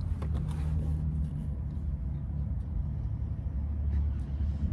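Car engine idling, a steady low hum heard from inside the parked car's cabin, with a few light clicks near the start.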